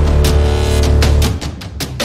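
Background music: a loud held low chord with drum strokes, easing off about a second and a half in.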